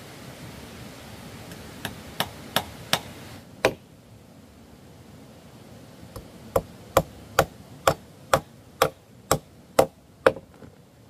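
Hammer blows driving nails into wooden floor framing: a quick run of about five strikes, then after a pause a steady run of about nine more, roughly two a second.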